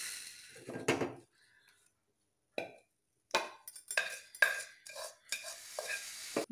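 A metal kadai clattering as it is handled at the stove, then a wooden spatula scraping and knocking around inside it in a run of short sharp taps, sweeping up the last roasted sesame seeds.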